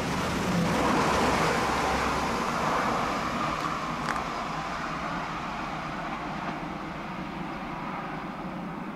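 Alstom Coradia Liner regional train passing close at speed: steady wheel-on-rail running noise with a low rumble, loudest about a second in and slowly fading.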